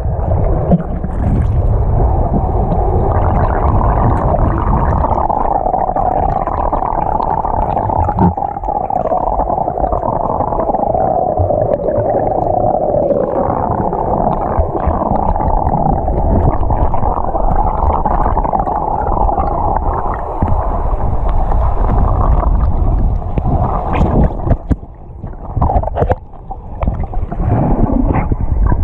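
Underwater swimming-pool sound heard through a submerged camera: a steady muffled rumble with a wavering drone. About 24 s in it turns choppy, with splashing and bubbling as the camera comes up toward the surface.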